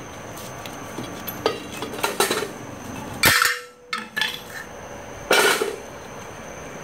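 Steel drum-brake hardware (shoes, return springs and small clips) clinking and rattling as it is worked off the backing plate of a Ford 9-inch rear axle. Several sharp metal clanks, a loud one about three seconds in and a longer rattle a little after five seconds.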